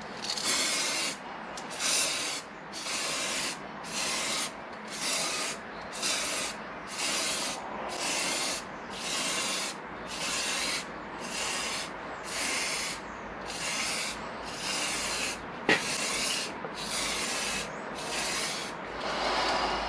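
Aerosol can of heat-resistant matt black spray paint being sprayed in short hissing bursts, roughly one a second, laying down a wet coat. There is a single sharp click about three-quarters of the way through.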